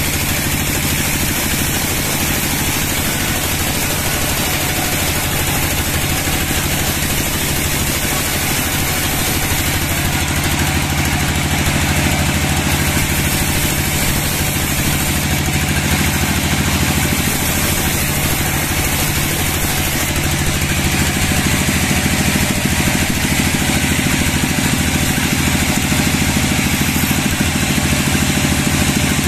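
Sawmill machinery running steadily with an engine-like drone and a steady low hum, getting slightly louder about two-thirds of the way through.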